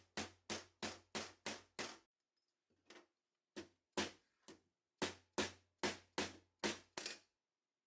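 A steady run of sharp taps or knocks, about three a second. They pause for a second or so about two seconds in, then carry on until shortly before the end.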